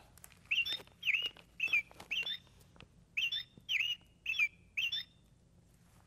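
Recorded American robin calls played by a squeezed plush robin toy: eight short chirps, in two groups of four with a pause of about a second between.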